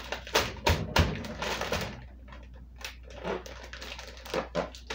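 Plastic zipper freezer bag crinkling and rustling as it is stuffed with frozen sliced onions and peppers and pressed shut along its zipper. The crinkles are busy for the first couple of seconds, then come as scattered short rustles and clicks.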